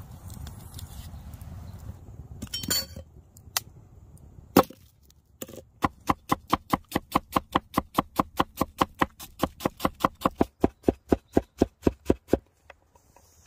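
Cleaver chopping a red onion on a wooden cutting board: an even, rapid run of knocks, about five a second, that stops near the end. A few separate knocks come before the run.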